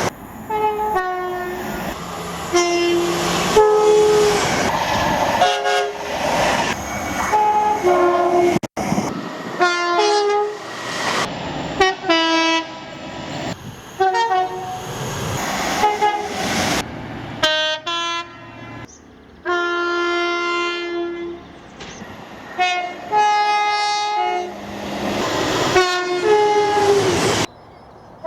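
A run of British and Irish train horns, one after another, mostly short two-note blasts sounded by passing trains over the rumble of the trains running on the rails. Several separate horn recordings follow in quick succession, with abrupt cuts between them.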